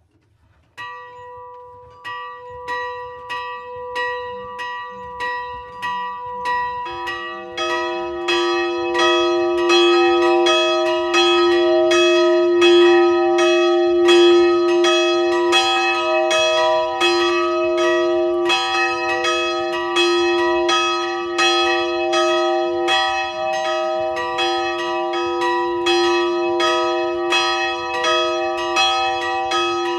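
Two swinging bronze church bells ringing in full peal. The small bell, tuned to B, starts about a second in, striking about once a second. The larger 132 kg Szent Imre bell, tuned to D-sharp, joins about seven seconds in, and from there the strikes of both overlap in a louder, denser, continuous ringing.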